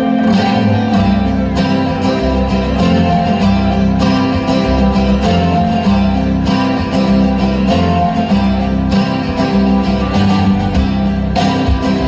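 Music with guitar and a steady beat; the bass and beat come in just after the start.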